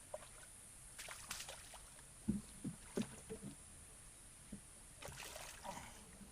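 Muddy pond water sloshing and splashing in short irregular bursts as someone wades and gropes through it by hand for fish, with a few dull low knocks about two to three and a half seconds in.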